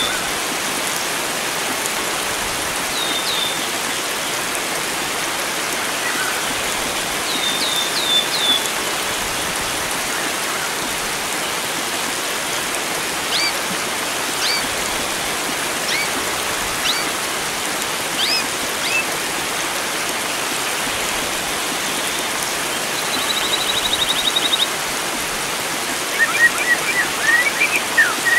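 Steady rush of flowing water with songbirds calling over it: short high slurred whistles, then quick rising chirps, a fast trill about three-quarters of the way in, and a burst of varied chirps near the end.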